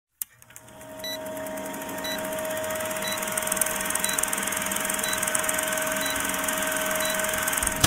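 Old-film countdown sound effect: a steady projector-like hum with film hiss and crackle, and a short beep about once a second, seven in all. It cuts off suddenly at the end.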